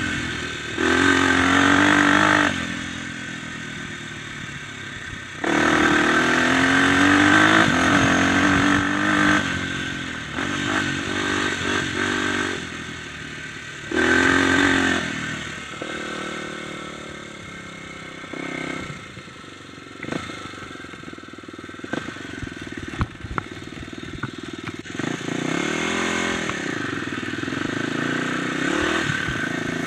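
Dirt bike engine revving up and falling back as it is ridden over a rough trail, with loud bursts of throttle about a second in, around six seconds and around fourteen seconds. A quieter stretch in the middle carries a few sharp knocks, and the engine runs steadily again near the end.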